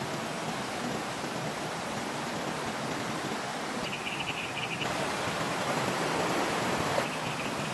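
Steady outdoor night hiss, with an insect trilling in pulses about four seconds in and again near the end.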